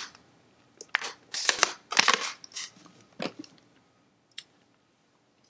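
Thin plastic water bottle crinkling and crackling in a hand while someone drinks the last of it: a few clicks, then a run of short crackly bursts for a couple of seconds, and a last click near the end.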